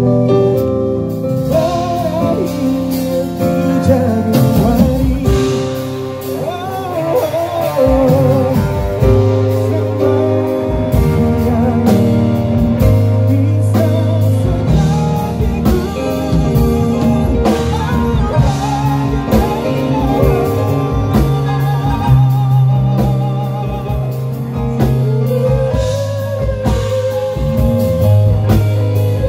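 A band playing together: chords on a stage keyboard with electric guitar and drums, over a steady low bass line and a bending melody line above.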